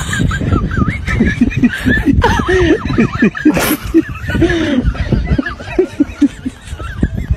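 A person laughing in repeated short snickers and chuckles, with a thin wavering high-pitched tone running underneath.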